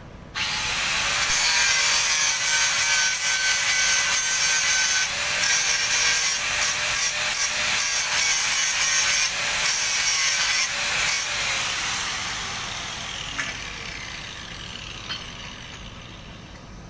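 Electric angle grinder grinding a steel padding plate: a loud, steady grinding hiss over the motor's whine that starts abruptly, then dies away over the last few seconds.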